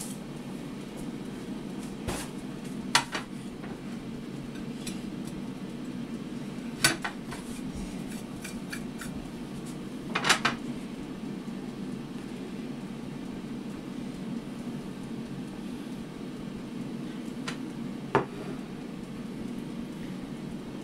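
Crockery being handled: a white ceramic dinner plate set down on a glass placemat, giving a handful of sharp clinks and knocks spread through, the loudest a short cluster about ten seconds in. Under it runs a steady low hum, the fan of the air fryer cooking nearby.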